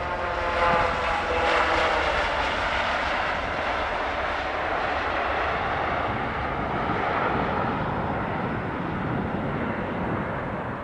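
Airbus jet airliner on its landing roll, passing close: its engine whine falls in pitch over the first couple of seconds as it goes by, then gives way to a steady rushing jet noise.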